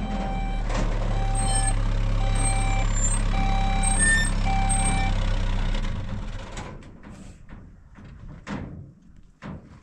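Vehicle engine running with a reversing alarm beeping about once a second; the engine and the beeping stop about six seconds in, leaving a few faint knocks.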